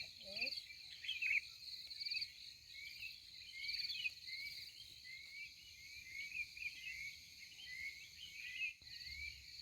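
Insects trilling in pulses, with many short high chirps throughout.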